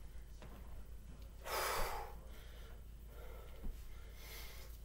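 A woman breathing out hard with effort while curling and pressing dumbbells: a strong exhale about a second and a half in and a softer one near the end.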